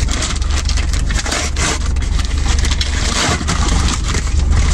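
A brown paper Amazon mailer being torn open by hand, a dense run of crackling rips and rustling paper as the package is pulled apart, over a steady low hum.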